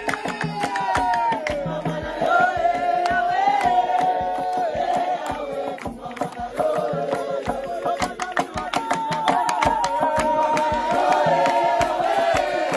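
A group singing a gospel song together over a steady percussive beat.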